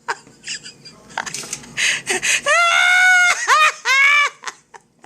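A woman's voice making high, drawn-out wordless cries, two long ones about halfway through with shorter ones around them.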